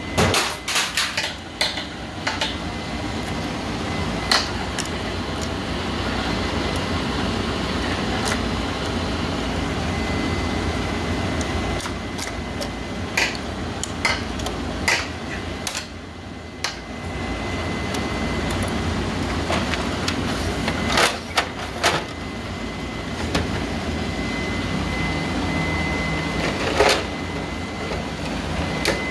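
Scattered sharp clicks and knocks of plastic printer panels and a screwdriver being handled while an Epson inkjet printer is taken apart, over a steady mechanical hum.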